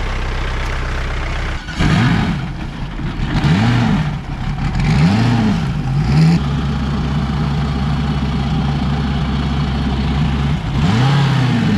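Turbocharged LS V8 in a jet ski running, blipped on the throttle several times so its pitch rises and falls quickly, settling to a steady idle in between and blipped again near the end.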